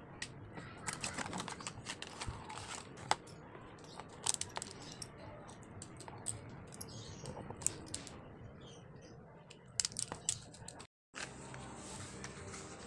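Clear plastic pens being handled, clicking and knocking against each other in a scatter of small sharp clicks. The sound drops out completely for a moment near the end.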